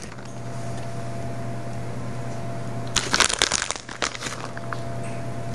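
Shredded mozzarella being scattered by hand onto bread topped with meatballs: a brief rustle of soft crackles about three seconds in, lasting about a second. Under it, a steady low hum with a faint high tone.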